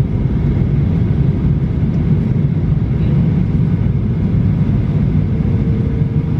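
Steady low rumble of a Boeing 737-800's cabin noise on descent, engines and airflow heard from inside the cabin.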